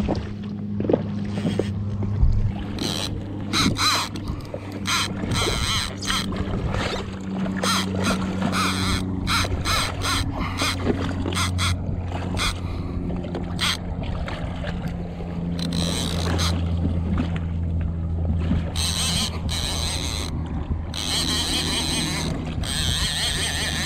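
Yamaha WaveRunner jet ski engine idling with a steady low hum, while short sharp splashes of water slap against the hull throughout.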